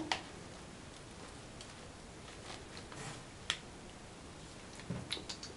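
Quiet handling of small cosmetic items and their packaging: a few light clicks and ticks, one sharper click in the middle and a short cluster of ticks near the end.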